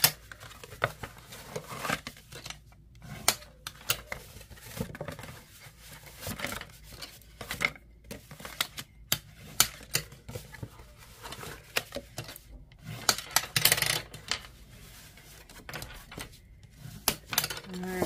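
Cardstock being folded along its score lines and burnished with a bone folder on a glass craft mat. The glass makes it loud: irregular clacks and taps of the folder and paper on the glass, with a few scraping rubs about thirteen seconds in.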